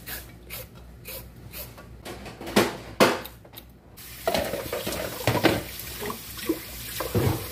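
A few short scraping strokes on carrots, then from about four seconds in a kitchen tap running onto the carrots in a stainless steel sink as they are rinsed, with a few knocks.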